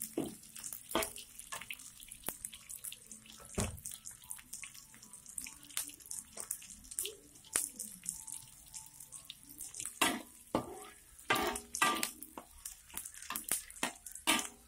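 Sliced onions sizzling in hot oil in a wok, with a metal spatula scraping and clinking against the wok as they are stir-fried. The scraping is busiest and loudest from about ten seconds in.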